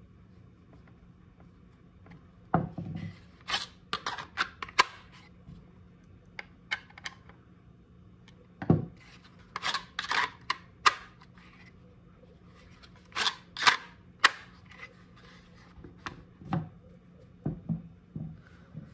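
Sharp clicks and snaps of a pistol with a weapon light being pushed into and drawn from a hard plastic light-bearing holster, in three bursts, testing the retention just set at the adjustment screw. Between them come a few dull knocks of the gear on a wooden tabletop.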